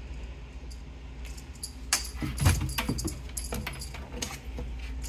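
Small bell on a feather wand cat toy jingling in quick irregular bursts as kittens bat and grab at it, mostly from about two seconds in, over a steady low hum.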